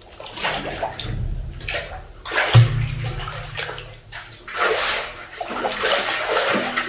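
Water splashing and sloshing in a large steel tank as a child moves through it, in several bursts, the loudest about two and a half seconds in and another long stretch near the end.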